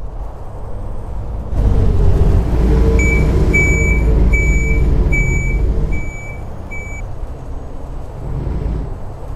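Six evenly spaced high-pitched beeps, about one every 0.7 seconds, from the warning beeper of a Volvo B7TL ALX400 double-decker bus, over the bus's engine running at low revs.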